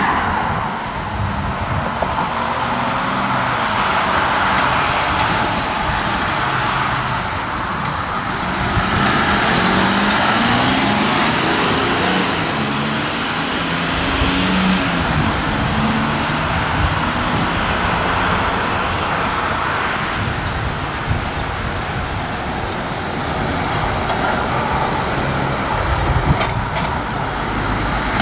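Van engines running and pulling away, with steady road traffic noise around them.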